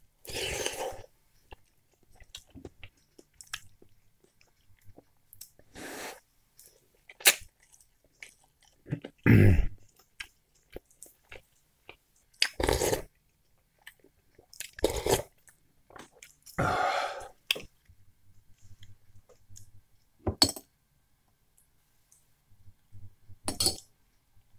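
Close-up eating sounds of a man taking spoonfuls of borscht: wet chewing and mouth noises in separate bursts every few seconds, with a few short sharp clicks between them.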